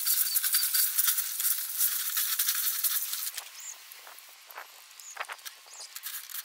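Garden hose spraying water onto a pile of small glass pieces on a wire-mesh screen, a spattering hiss with many tiny clicks. The spray stops about three seconds in, leaving a few faint clicks of the glass pieces being handled.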